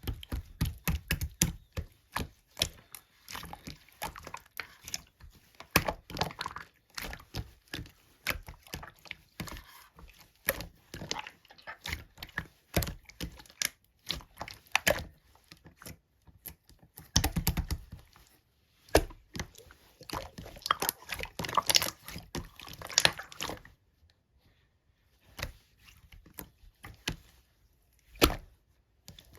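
Slime being squished, poked and stretched by hand: a dense, irregular run of sticky clicks, pops and squelches, with a few short pauses.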